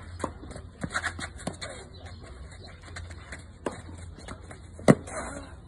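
Tennis ball knocked back and forth in a rally on a clay court: a few soft knocks of distant hits and bounces, then a sharp racket strike, the loudest, near the end.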